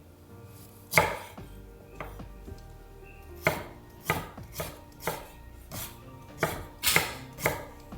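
Knife chopping ginger on a cutting board: about a dozen sharp, separate strokes, coming about two a second from the middle on.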